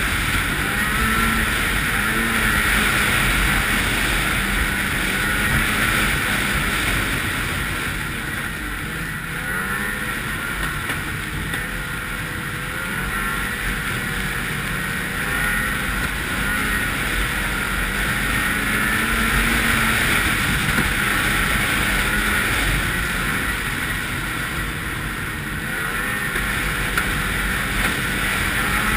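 A Ski-Doo 800 snowmobile's two-stroke twin engine runs under way along with the rattle of the track, its engine speed rising and falling with the throttle.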